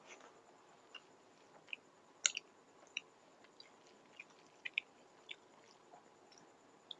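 A person chewing food close to the microphone: faint, wet mouth clicks and smacks scattered irregularly, the loudest a little over two seconds in.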